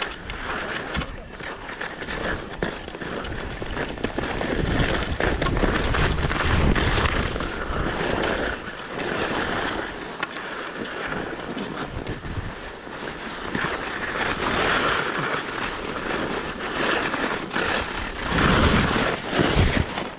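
Skis scraping and hissing over snow on a downhill run, rising and falling with the turns, with wind buffeting the microphone. Near the end comes a louder rush as the skis plough through loose snow.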